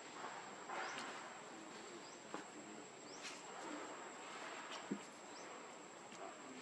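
Faint forest ambience: a steady high-pitched insect drone with scattered short, rising bird chirps, and a couple of faint clicks.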